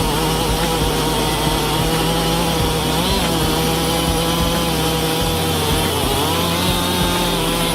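Gasoline two-stroke chainsaw running steadily at high revs, cutting wood, its pitch dipping briefly about three seconds in and again around six seconds.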